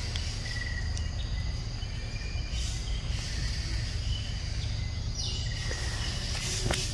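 Outdoor ambience: insects droning steadily at a high pitch over a steady low rumble, with a couple of brief, faint high chirps.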